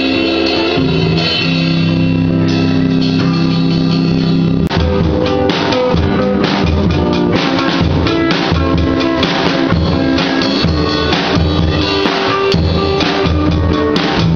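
Live rock jam: electric guitar chords ring on their own for the first few seconds. After a momentary dropout about five seconds in, a drum kit comes in under the guitar, its bass drum and snare hits keeping a regular beat.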